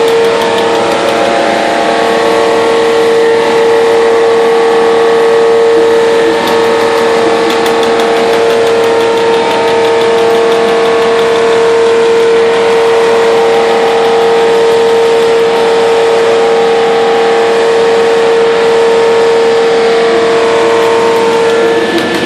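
Trumpf TC500 CNC punch press punching thin aluminium sheet: a loud, steady machine whine with rapid, evenly spaced punch strokes running through it.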